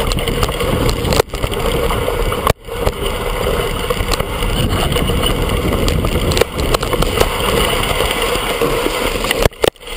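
Steady, loud ride noise from a mountain bike descending a snowy trail, picked up by a camera mounted on the bike: tyre rumble, rattling of the bike and wind on the microphone. It cuts out briefly three times.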